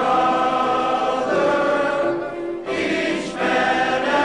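A choir of men singing held notes together, with a brief break for breath about two seconds in before the singing resumes.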